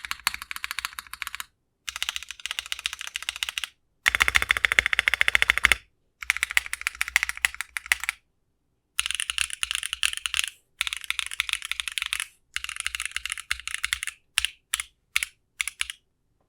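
Typing on a Mode Envoy mechanical keyboard fitted with Lichicx Torch linear switches: runs of fast keystrokes with short pauses between, the fastest and loudest run about four seconds in, ending with a few single key presses. The switches have a crisp, higher-pitched sound, with the bottom-out slightly lower than the top-out.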